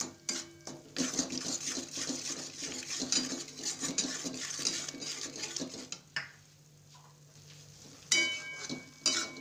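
Metal spatula stirring and scraping thick spice masala around a steel kadai, a busy run of scrapes and clinks that stops about six seconds in. About eight seconds in comes a loud metal clank with a short ring.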